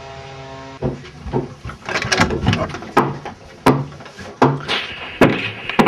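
Repeated, irregular knocks and bangs, about nine in five seconds, some with a short low ring, from work on a shower stall being torn out and remodelled. A steady hum cuts off about a second in, just before the first knock.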